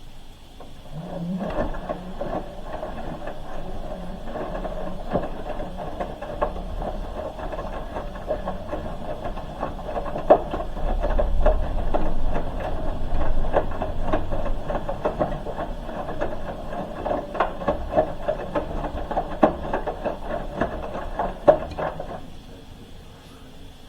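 Hoover H-wash 300 Plus washing machine drum turning: the motor starts with a low rising whine, then the drum runs with a steady rumble and frequent clicks and knocks from the tumbling load before stopping abruptly near the end. The load in the drum is balled up.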